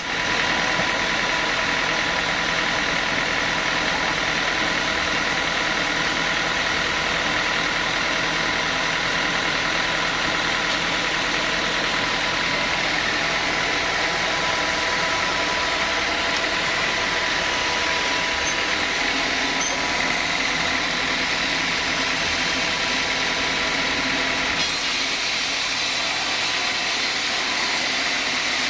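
Sawmill saw cutting teak, running steadily with a faint whine. Near the end the sound turns brighter and hissier.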